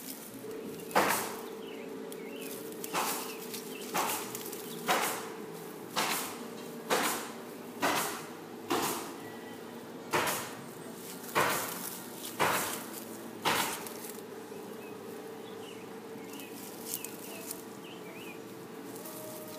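About a dozen sharp crunches in dry pine straw and dead leaves, coming at irregular intervals of about a second and stopping about two-thirds of the way through, over a steady low hum.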